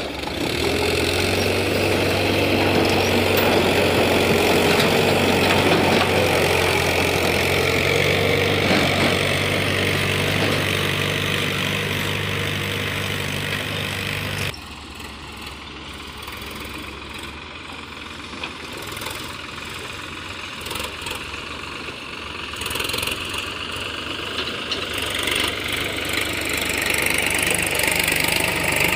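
Diesel farm tractor engines running under load as they pull trailers. Midway the sound cuts abruptly to a second, quieter tractor engine that grows louder near the end.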